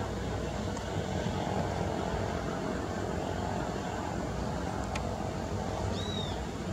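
Distant airliner jet engines running, a steady low rumble. A short bird chirp comes near the end.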